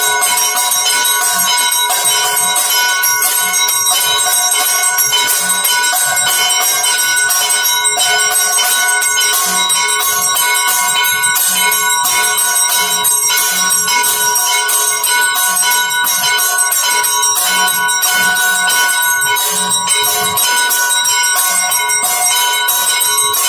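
Temple bells ringing without pause: fast, dense strikes over a steady, many-toned ringing.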